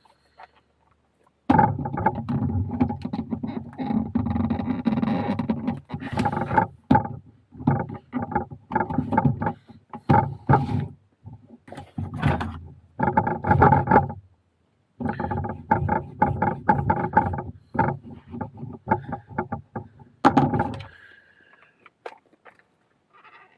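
Wet vegetable-tanned leather being pressed and rubbed by hand around a gun form to mould it, squeaking and creaking in several runs of quick strokes with short pauses between them.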